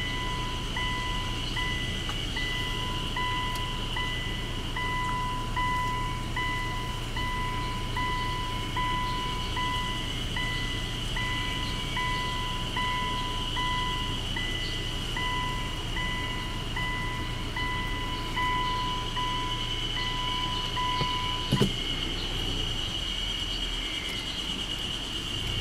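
A car's warning chime beeping a little over once a second, over a low steady vehicle hum and a steady high-pitched drone. Near the end a single knock sounds and the chime stops.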